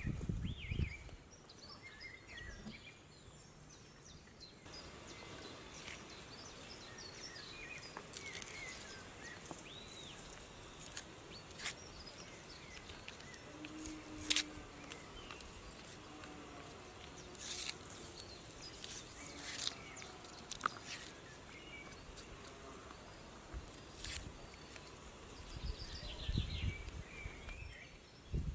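Quiet outdoor ambience with scattered short bird chirps and calls, broken by a few sharp clicks or taps, the loudest about halfway through. Some low thumps come in near the end.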